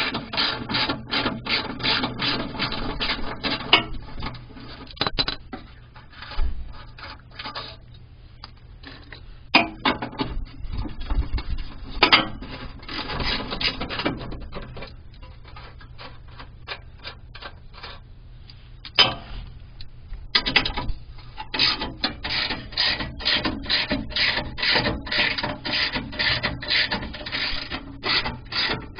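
Hand ratchet wrench being worked back and forth on the skid plate bolts, a rasping run of ratchet clicks at about three strokes a second, in bursts with pauses between them.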